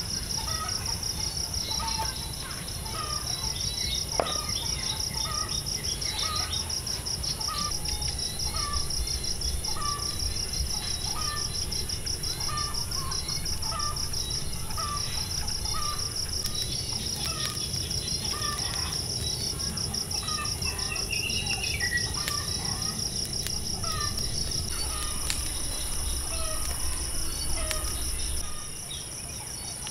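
Night insects such as crickets trilling steadily in two high, finely pulsing bands, with a short chirping call repeating about once a second over a low background hum.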